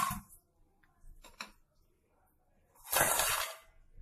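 Crisp fried gavvalu (small wheat-dough shells) tipped into a stainless steel bowl and clattering against the metal: a few light taps about a second in, then a longer rush of clatter about three seconds in.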